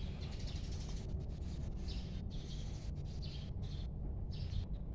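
Birds chirping, short calls about once a second, over a steady low background noise.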